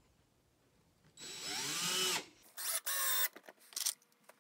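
Cordless drill/driver driving screws through a steel hinge into a wooden board: one longer run about a second in with the motor pitch rising and then falling, followed by several short trigger bursts.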